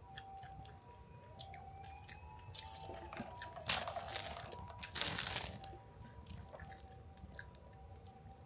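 Plastic bread wrapper crinkling in two loud bursts, about four and five seconds in, over soft background music.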